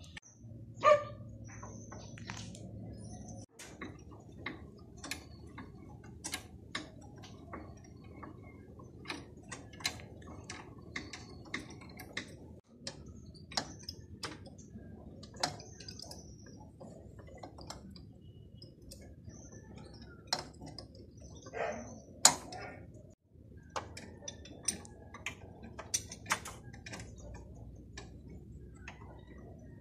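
Irregular metallic clicks and clinks of hand tools on the bolts and fittings of a VW Beetle's rear engine.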